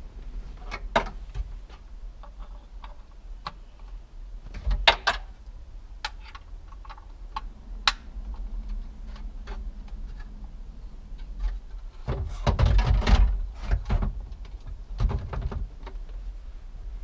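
Car radio head unit being refitted into a stripped dashboard: scattered clicks and knocks of connectors and the metal case against the dash frame, with a longer spell of clattering about twelve seconds in as the unit is pushed into its opening.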